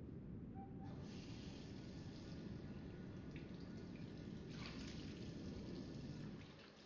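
Water from a bathroom tap running into a sink, starting about a second in, with louder splashing at about four and a half seconds, over a low steady hum.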